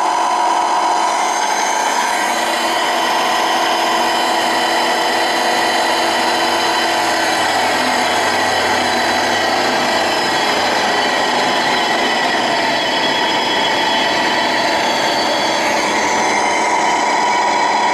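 Vectrax GS-20V vertical mill's head, its 3 HP motor and variable-speed spindle drive running with a steady whine of several high tones. The pitch sags partway through and shifts again near the end as the spindle speed is changed.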